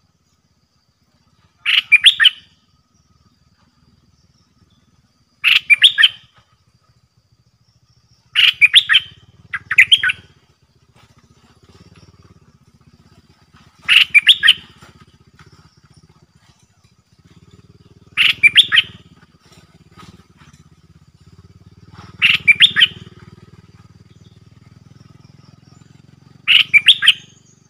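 A bulbul singing short, loud, repeated song phrases, about one every four seconds, two of them back to back about a third of the way in. A faint low hum sits under the song from about a third of the way in.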